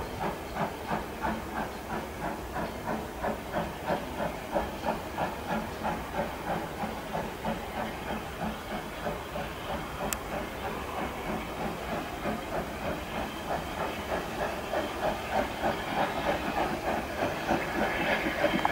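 Small steam locomotive working towards the listener, its exhaust chuffing in a steady, even rhythm and growing louder as it nears, with steam hissing. There is a single sharp click about halfway through.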